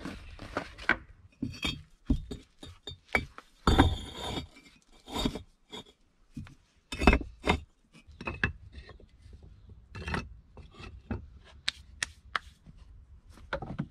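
Clay bricks being handled and laid: a string of sharp clinks and knocks as brick meets brick, with rasping scrapes as they are slid into place on an earth floor.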